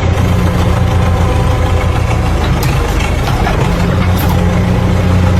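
Large engine idling steadily, with a low, even hum.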